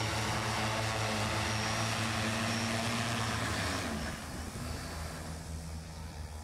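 Electric lift rotors of a JOUAV DJ-25 hydrogen VTOL drone hovering down to land: a steady hum of several tones over rushing air. About four seconds in, at touchdown, the sound drops and the rotors wind down.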